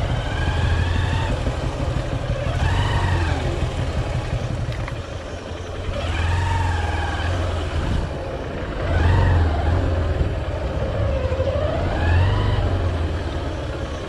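Hero Hunk's 150 cc single-cylinder engine running, revved about five times in short throttle blips, each rising and falling in pitch over a second or so.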